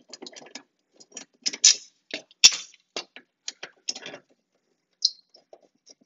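Irregular metallic clicks and clinks as the stacked steel blades of a Honda HRR216 mower are handled and fitted against the blade holder, with one sharper knock about halfway through.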